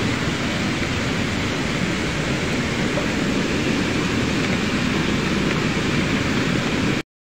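Muddy floodwater rushing and churning along a concrete channel after heavy rain, a loud, steady rushing noise. It cuts off suddenly near the end.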